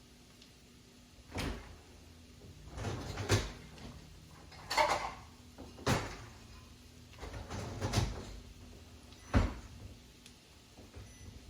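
Kitchen handling sounds while cooking: about six separate knocks and scrapes of cookware, spread through, with quiet between them.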